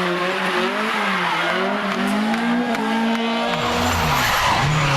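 A rally car engine at high revs, its pitch rising and falling with the throttle and gear changes, over a hiss of tyre noise. About three and a half seconds in, a deeper engine note takes over.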